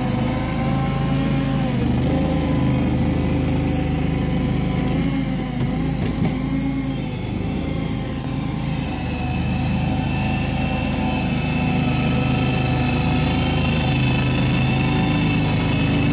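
Engine of a homemade wheel loader, a Kawasaki, running steadily as the machine drives and pushes snow with its bucket. A higher steady whine joins it about halfway through.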